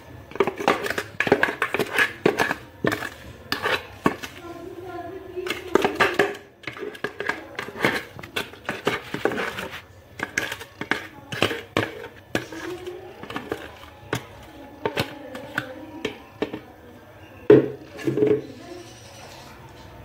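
Repeated clinks and knocks of a plastic blender jug and a metal spoon against a bowl, as cake batter is poured out of the jug and scraped from it.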